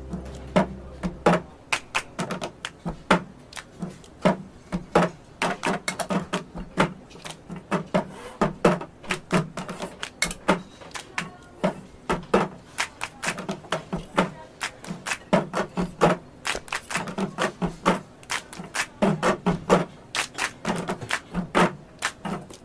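Hand-and-cup percussion: a quick, uneven run of dry taps, claps and knocks, some with a low thud under them. It follows the song's last chord, which fades out about a second in.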